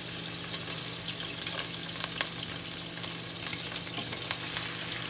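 Thin-sliced beef sizzling in olive oil in a skillet: a steady hiss with scattered sharp pops as moisture on the still-wet meat spatters.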